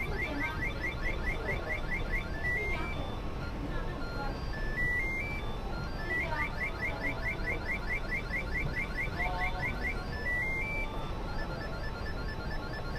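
Coin-operated fortune-telling machine playing its electronic beeping tune. Runs of quick high beeps, about six a second, climb in small steps and repeat several times over a steady background hum.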